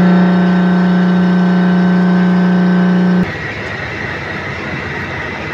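CNC lathe turning a steel bar. A loud, steady humming tone for about three seconds cuts off suddenly, and a quieter, steady machining noise with a faint high whine follows.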